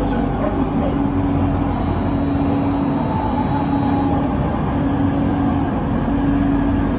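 Running noise heard from inside an elevated light-rail train carriage in motion: a steady rumble with a low hum that fades in and out every couple of seconds.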